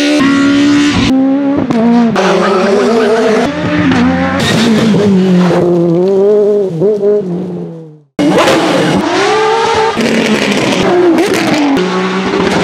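Peugeot 306 Maxi kit car's 2.0-litre XU10J4RS inline-four rally engine at high revs, its pitch climbing and dropping through gear changes, in abrupt cuts. About eight seconds in it fades away to a brief silence, and then race car engines revving again in quick cuts.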